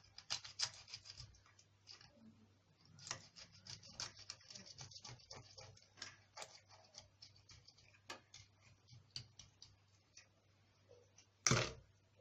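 A blade cutting through a raw mackerel's flesh and bones: many quick small clicks and crackles, with one louder knock near the end.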